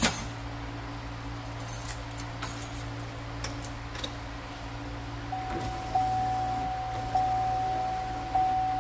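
Plastic door trim panel of a 2003 Chevrolet Silverado clicking and knocking as it is worked onto the door over the window sill, the loudest click right at the start. From about five seconds in, a steady high electronic chime sounds, striking again about every second and a quarter.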